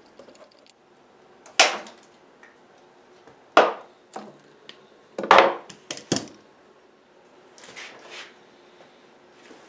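A string of separate sharp wooden knocks and clatters, about eight in all, from a wooden clock hood and tools being handled and set down on a workbench. The loudest comes a little past halfway.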